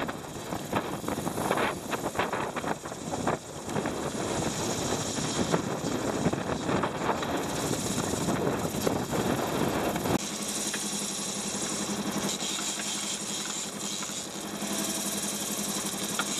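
Wind buffeting the microphone over the rush of water along a sailing boat's hull, in gusts. About ten seconds in, the sound changes to a steadier, even mechanical drone.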